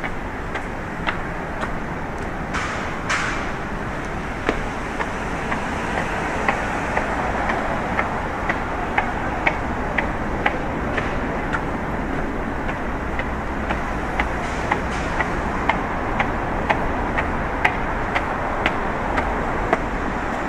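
Busy city street at night: a steady wash of traffic, with the walker's footsteps clicking evenly about twice a second. Two short hisses come about three seconds in.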